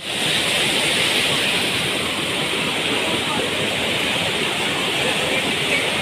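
Waterfall crashing down a rock face into a pool, a steady rushing roar of falling water.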